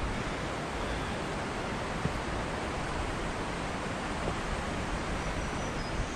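Steady, even rushing noise with no distinct events, like a mountain stream or wind heard through the trees.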